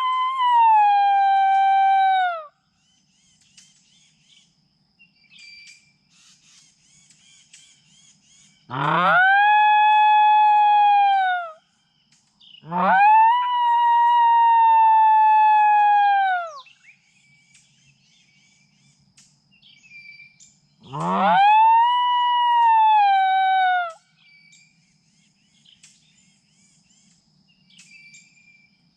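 Fawn distress bleats played through an electronic predator caller as a coyote lure: four long, loud bleats several seconds apart, each rising sharply at the start, held, then falling away at the end.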